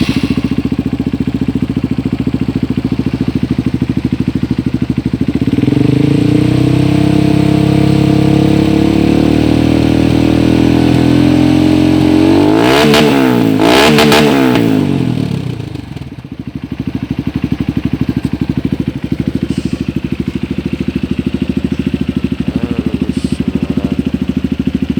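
Honda CRF150L's single-cylinder four-stroke engine running through a Norifumi RV-1 aftermarket exhaust. It idles, is held at raised revs from about five seconds in, gets two sharp rev blips, then settles back to idle.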